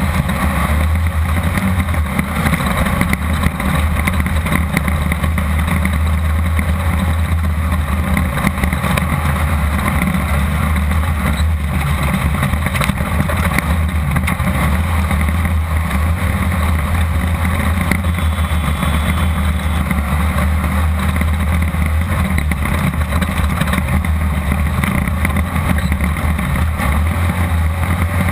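Class 1600 off-road race buggy's air-cooled VW engine running steadily at speed, heard from inside the car with loud wind and road noise over it.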